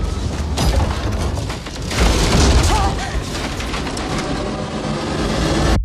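Film-trailer sound effects: deep booms over a dense rushing noise, with music faintly underneath, swelling louder about two seconds in.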